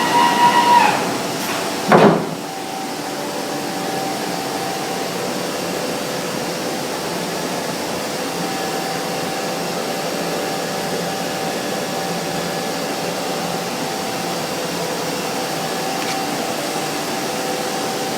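Biesse Rover CNC router running steadily with a constant whooshing hum and two faint steady tones. A single loud knock comes about two seconds in.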